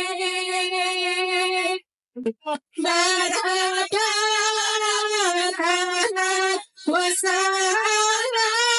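Women's voices singing an Arabic sholawat in praise of the Prophet, drawing out long ornamented notes. The singing breaks off briefly about two seconds in and dips again shortly before the end.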